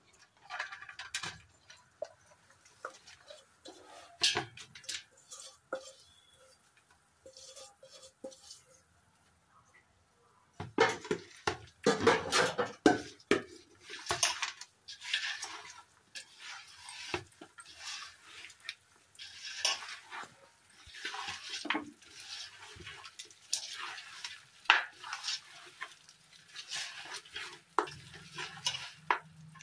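A hand mixing chicken with marinade and chopped herbs in a metal pot: irregular clinks and scrapes of bangles and fingers against the pot and a steel bowl, with wet rustling of the mixture, loudest a little before the middle.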